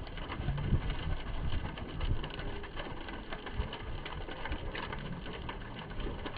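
A large wooden-pallet bonfire burning fiercely: a steady rush of flame with a low rumble and dense crackling and popping of burning wood.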